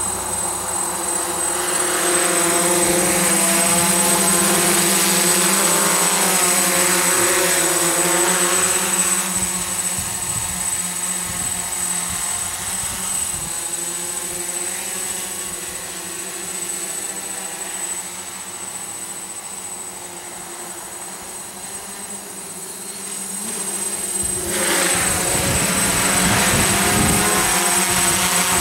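DJI F550 hexacopter's six motors and propellers buzzing in a hover, the pitch wavering as the motors keep adjusting. It fades as the craft moves away about ten seconds in, and grows loud again as it comes back close near the end.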